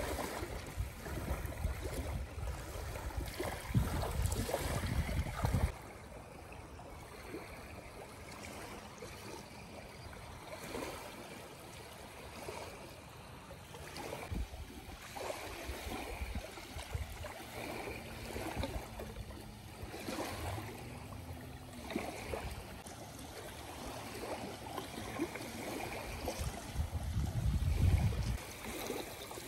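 Small waves lapping and washing over sand and rocks at the edge of a calm bay, in soft irregular splashes. Wind rumbles on the microphone for the first six seconds and briefly near the end.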